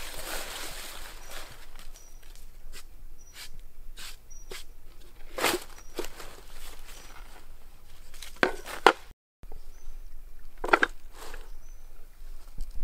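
Dry leaf litter and palm fronds rustling and crunching underfoot and under hand while a wooden chopping board is set down on the fronds. Scattered sharp knocks stand out, the loudest a close pair about eight and a half seconds in. After a brief break, a few more handling knocks follow.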